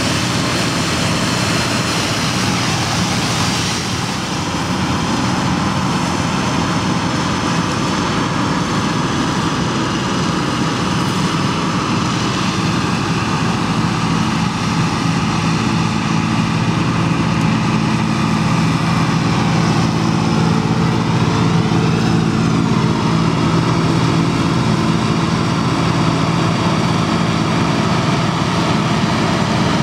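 Deutz-Fahr M2680 combine harvester at work threshing wheat: a steady engine drone under load mixed with the whirring of its threshing gear. The low engine note gets stronger in the second half.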